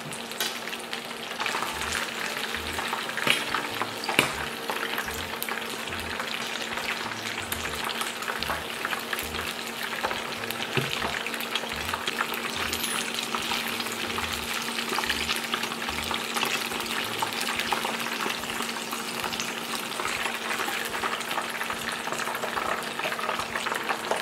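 Battered squid deep-frying in a wok of hot oil: a steady dense crackle and sizzle of the oil, with two sharper clicks about three and four seconds in.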